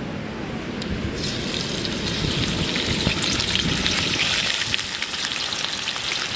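A large piece of masala-coated fish slid into hot oil, which starts sizzling and crackling about a second in and keeps up a steady deep-fry sizzle.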